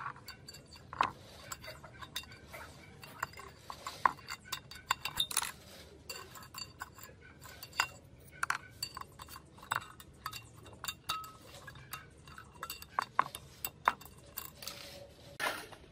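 Irregular light metal clinks and taps of steel pushrods and a screwdriver against a small four-stroke engine's cylinder head during hand disassembly.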